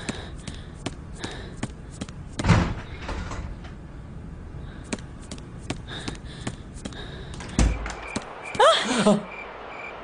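Hurried knocks and thuds of a door being reached and opened, with a heavy slam-like thud about two and a half seconds in and another near the end, amid scattered clicks. A short sound that slides in pitch follows.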